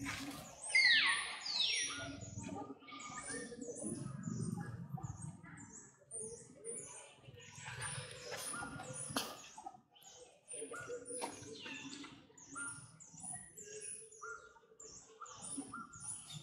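Two short, high squeals falling in pitch about a second in, the loudest sounds, over many short high chirps repeating throughout.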